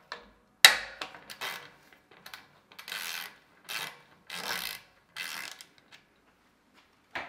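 Front thru-axle of a disc-brake road bike being opened and unscrewed by its lever: a sharp click about half a second in, then a run of short noisy strokes about every three-quarters of a second as the axle is turned out, and another click near the end.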